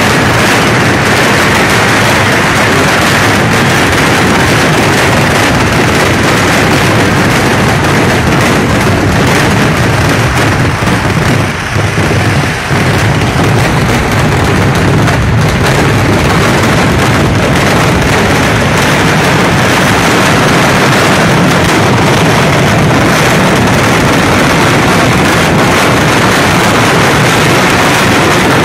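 Massed firecrackers of a Kerala temple-festival vedikettu fireworks display going off in a very loud, unbroken barrage of rapid explosions, easing only briefly about twelve seconds in.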